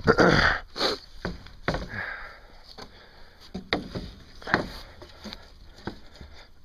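Light handling noise: a short noisy rush at the start, then scattered light knocks and rustles as a hand and a handheld phone move along the wooden coop frame and its chicken wire.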